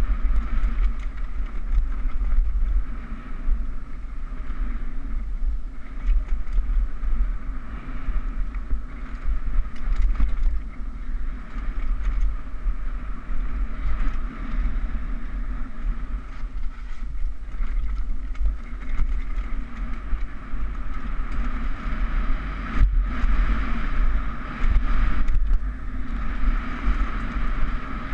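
Mountain bike riding fast down a rough dirt trail: steady wind rumble on the action camera's microphone over the rattle of tyres and frame on the ground, with a couple of sharp knocks near the end.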